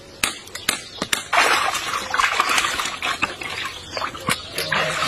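Water splashing and sloshing in a steel basin as hands scrub a half beef head in it, with a few sharp clicks in the first second before the splashing picks up.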